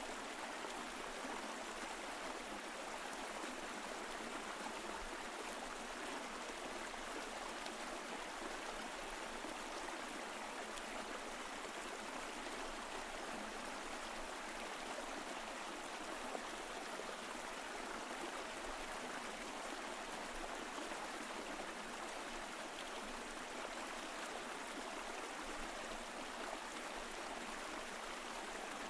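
Mountain stream flowing over rocks: a steady, even rush of water with light gurgling.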